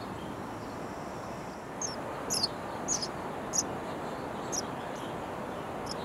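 Nestling sparrows in a bird house giving a handful of short, high begging chirps about two to five seconds in, over a steady outdoor background hiss.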